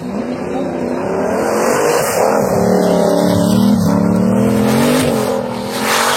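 Car engine revving hard under acceleration, its pitch climbing and dropping several times as it changes gear. A short burst of hiss comes just before the end.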